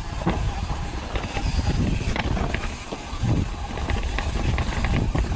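Mountain bike riding down a dirt trail: a continuous rumble of tyres and wind noise, broken by frequent sharp clicks and rattles from the bike.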